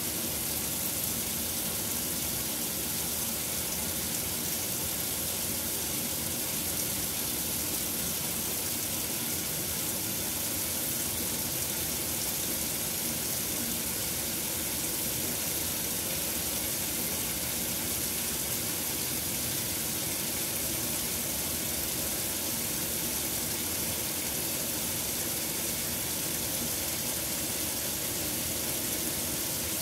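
KitchenAid Superba KAWS850LT1 top-load washer filling: water pours steadily from the fill inlet into the tub onto a full load of clothes, a constant even rush.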